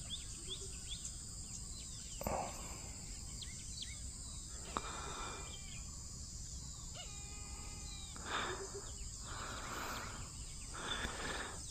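Quiet lakeside ambience: a steady high-pitched insect drone, like crickets, with scattered short bird calls and chirps.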